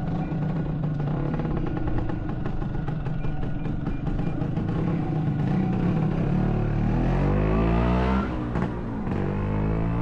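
Vehicle engine running steadily, then revving up from about six and a half seconds in. The pitch breaks off near eight seconds, as at a gear change, and rises again just before the end.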